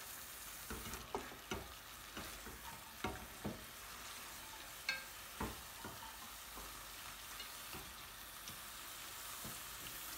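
Lamb pieces and sliced onions sizzling in a metal pan while a spatula stirs them, a steady hiss broken by irregular scrapes and knocks of the spatula against the pan.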